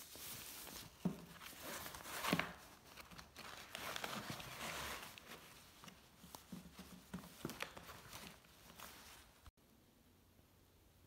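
Close-up rustling and crinkling as a paper notebook and a plastic mesh zip pouch are handled, in spells, with a few soft knocks against a wooden ledge. The sound cuts off about nine and a half seconds in.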